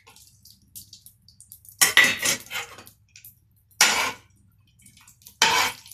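Metal spoon scraping a non-stick frying pan while stirring cashew nuts roasting in ghee, in three short bouts about two, four and five and a half seconds in.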